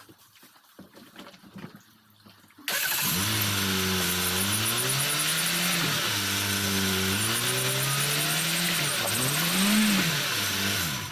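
A VAZ-2104 Lada's engine comes in suddenly about three seconds in and revs up and drops back about three times under a steady loud hiss. The car is pulling away in first gear and being braked hard, a way of jolting a seized rear brake drum loose.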